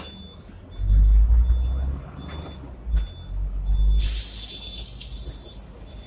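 Seventh-generation Hong Kong tram running, with heavy low rumbles from the car, then about four seconds in a hiss of compressed air lasting about a second and a half, typical of the tram's air brakes.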